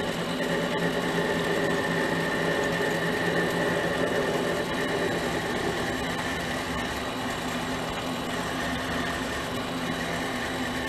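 Mini lathe motor and spindle running steadily at about 550 RPM, a constant hum with a higher whine that is stronger in the first half.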